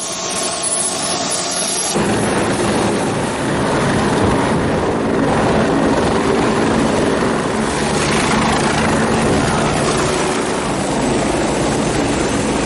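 Loud, steady engine noise of military combat aircraft, with an abrupt change in the sound about two seconds in.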